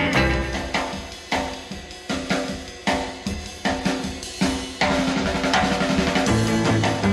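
Rock music: a drum kit beat with snare, kick and cymbals over bass and guitar, getting fuller and louder about five seconds in.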